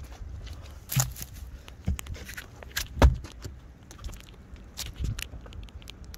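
Boot footsteps over rotting boat timbers and soft riverbank mud and seaweed: a handful of irregular thuds and scrapes, the loudest about three seconds in, over a low steady rumble.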